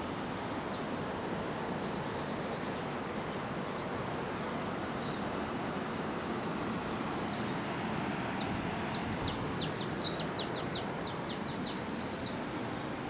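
Small birds chirping over a steady rushing noise: scattered single chirps, then a quick run of short chirps, each falling in pitch, from about two-thirds of the way in to near the end.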